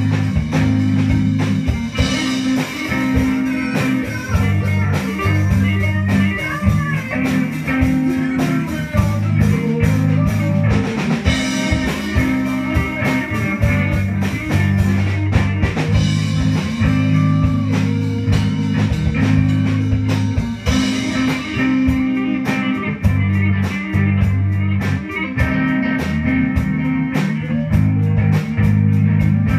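Live band playing a rock song: guitars over a steady bass line, with a drum kit keeping the beat.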